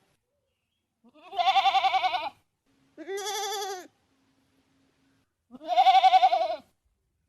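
Goat bleating three times, each bleat a quavering call about a second long.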